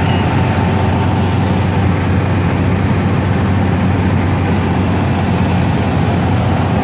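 Asphalt milling machine and other heavy road-work machinery running, a loud steady diesel drone with a strong low hum.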